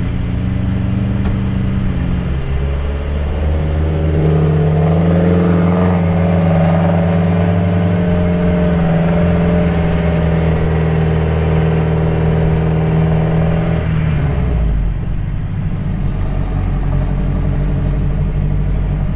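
SUV engine heard from inside the cabin while driving on soft dune sand: the engine note climbs a few seconds in and is held steady under load, then drops back to a lower note about three-quarters of the way through as the driver eases off.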